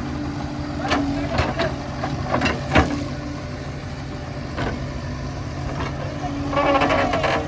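Diesel engine idling steadily, with a few sharp knocks over it.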